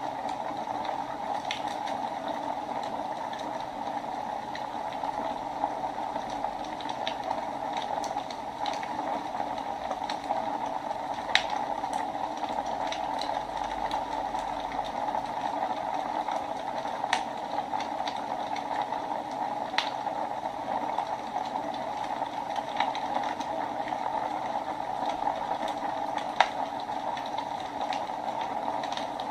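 Wood fire burning in a fireplace: a steady hiss with irregular crackles and pops, a few sharper pops standing out.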